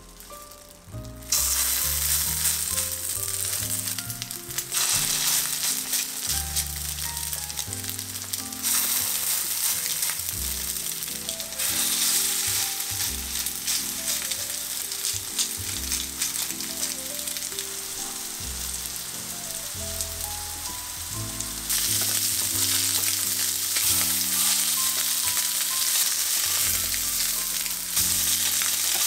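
Chicken and lotus-root tsukune sizzling in a frying pan. The sizzle jumps up sharply about a second in, then swells and eases a few times. Soft background music plays underneath.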